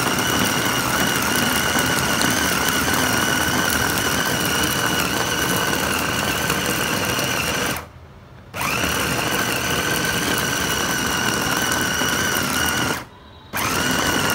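Electric chopper motor running with a steady whine as it grinds raw mutton with green chillies, coriander and spices into keema. It stops briefly about eight seconds in and again near the end, starting up again each time.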